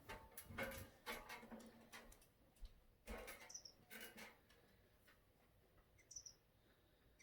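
Faint, short, high chirps from small aviary birds, a few seconds apart, over light rustling and clicks from handling objects.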